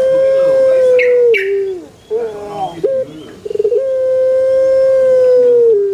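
Puter pelung dove cooing: a long drawn-out coo held on one steady note for about two seconds, then a few short wavering notes and a quick rolling trill, then a second long coo that drops slightly in pitch at its end.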